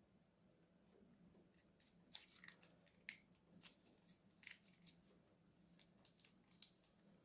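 Faint scattered crackles and squelches from a plastic piping bag being squeezed as white glue squirts out, over near silence.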